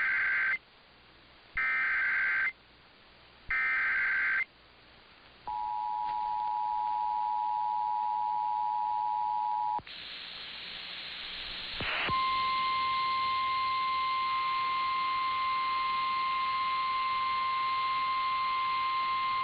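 Emergency Alert System activation: three short bursts of SAME header data tones about two seconds apart, then the two-tone EAS attention signal for about four seconds. Then a stretch of radio hiss, and from about twelve seconds in a single steady tone, the National Weather Service warning alarm tone that comes before a relayed flash flood warning.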